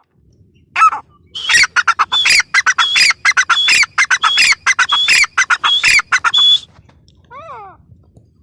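Grey francolin calling: one short note, then a loud, harsh run of rapidly repeated phrases, about one and a half a second, that breaks off near the end, followed by a single fainter call.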